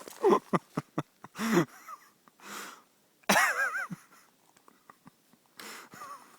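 A person imitating a pigeon with their voice: a few short calls, one with a fast wavering warble about halfway through, between breathy huffs.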